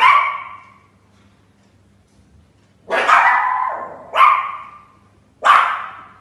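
Small dogs barking at a closed door: four sharp, high barks in about six seconds, each echoing briefly in the room.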